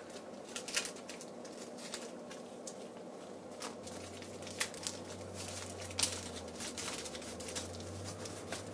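Thin clear plastic bag crinkling and rustling as paper booklets are slid out of it, in scattered crackles, the sharpest about a second in and about six seconds in.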